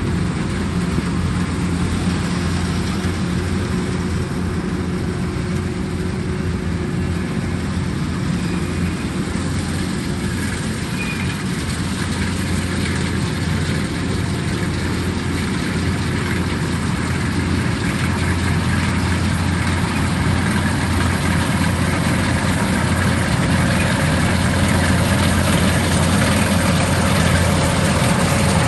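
Kubota rice combine harvester's diesel engine and machinery running steadily as one continuous drone, growing a little louder near the end.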